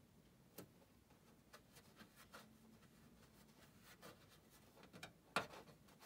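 Faint, scattered taps and scrapes of fingertips pressing a sticker onto a PC case panel, with the loudest tap about five seconds in.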